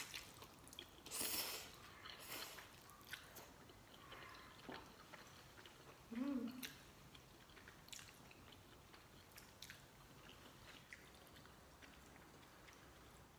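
People slurping and chewing noodles: a few loud slurps in the first couple of seconds, then soft wet chewing and mouth clicks, with a short hummed "mm" about six seconds in.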